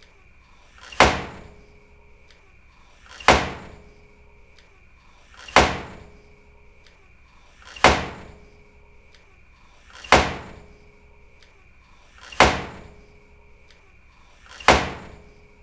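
A door slammed shut hard, seven times at even intervals of about two and a third seconds, each bang dying away quickly.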